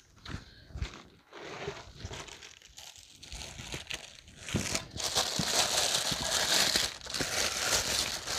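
Light rustles and knocks as a cardboard box is opened, then a plastic bag crinkling loudly from about halfway through as it is pulled open and off the item inside.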